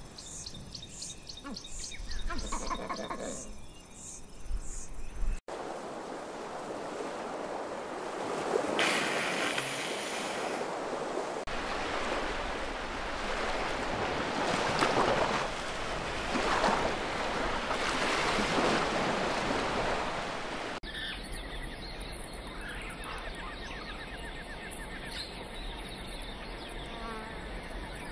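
Added nature soundscape that changes at two hard cuts. First come repeated high bird chirps, about two a second, with a brief lower call. Then a long stretch of surging sea-and-wind wash, and near the end insects buzzing with small bird chirps.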